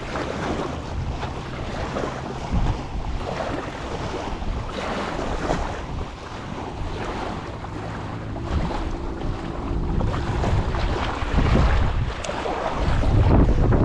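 Small waves washing onto a sandy beach, with gusty wind buffeting the microphone in a low, surging rumble.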